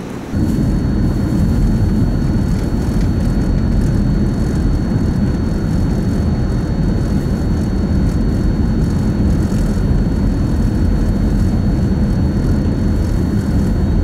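Steady low rumble of a car driving on snow-covered streets, heard from inside the cabin: engine and tyre noise, with a faint steady high-pitched whine above it. It starts abruptly about a third of a second in.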